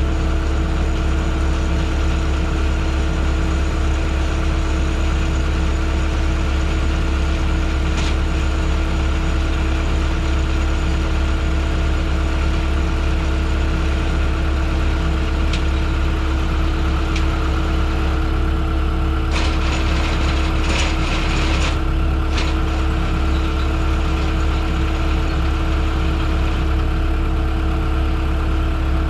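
Wood processor's engine running steadily, with a few sharp knocks and a short burst of clatter about twenty seconds in.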